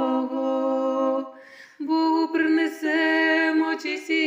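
Unaccompanied singing of a Ukrainian Christmas carol, holding long sustained notes, with a short break about a second and a half in before another long held phrase.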